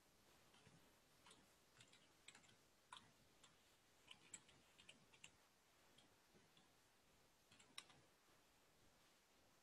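Faint computer keyboard typing: irregular single keystrokes and short runs of keys, with one louder key press near the end.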